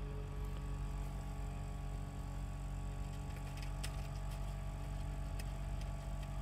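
Steady low machine hum made of several faint constant tones, with a few faint light clicks around the middle.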